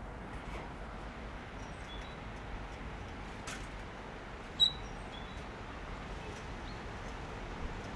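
Steady outdoor background hiss with a few faint, short, high-pitched chirps, and one brief sharp high-pitched chirp about four and a half seconds in, the loudest sound.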